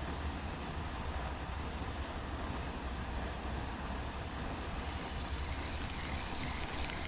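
Steady wind noise on the microphone: an even rushing hiss over a low rumble, with faint quick clicks coming in over the last couple of seconds.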